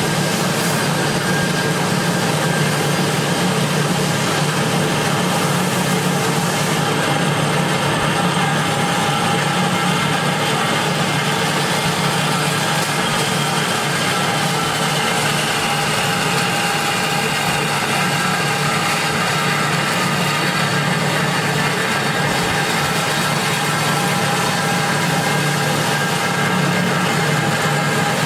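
Marvel 8-MK-1 Series 8 Mark vertical band saw running and sawing through a metal tube: a steady motor hum with the blade's cutting noise, unchanging throughout.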